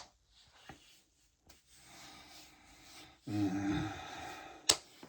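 A man's deep burp starting about three seconds in and fading over about a second, brought up from a stomach bloated with carbonated lemonade. A single sharp slap follows near the end.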